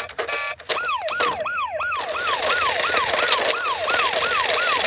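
Toy police motorcycle's electronic siren: a fast, repeating falling wail, about three falls a second, starting just under a second in after a few short beeps.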